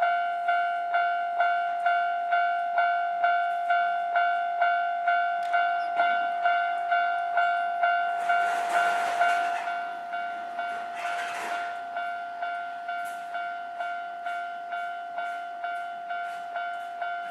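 Japanese railway level-crossing warning bell ringing in a steady, even clang, just over two strikes a second. Around 8 and 11 seconds in, two short rushes of noise pass through, and the bell sounds quieter from about 10 seconds on.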